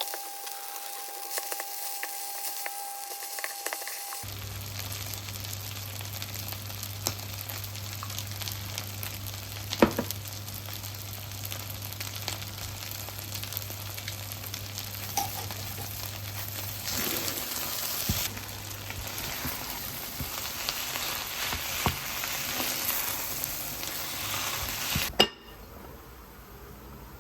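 Food frying and sizzling in a pan, a steady hiss with occasional clicks of a utensil stirring. The sizzling stops suddenly about two seconds before the end.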